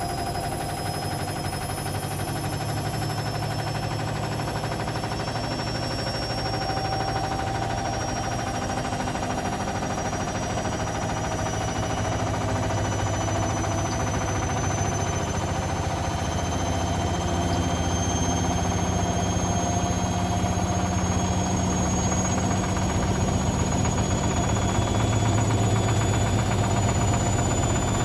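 Hotpoint Ultima WT741 washing machine in its final spin with towels, the drum speeding up: a whine rises slowly in pitch and the sound grows louder over a heavy low rumble. The load is unbalanced and the tub's shock absorbers have come off, so the drum shakes hard as it spins.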